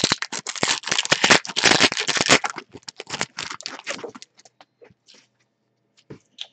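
Foil wrapper of a trading-card pack being torn open and crinkled by gloved hands, dense for about two and a half seconds. After that come scattered rustles and clicks as the cards are slid out of the wrapper.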